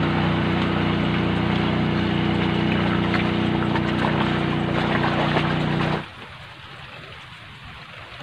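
Small motorboat engine running steadily, a hum of several steady tones, that stops abruptly about six seconds in; faint lapping water remains afterwards.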